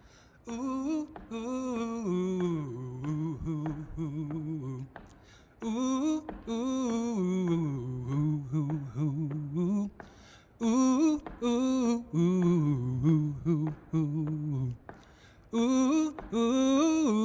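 A man's voice singing unaccompanied, without words. There are four slow phrases, each falling to a long low note, with short pauses between them.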